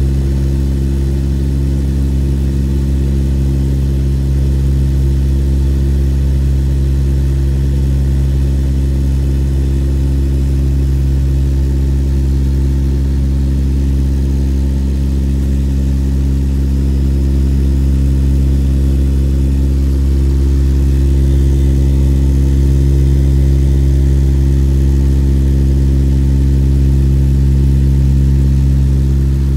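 C-130's turboprop engines and propellers at takeoff power during the climb-out, heard inside the cabin: a loud, steady drone made of several low tones, growing slightly louder in the second half.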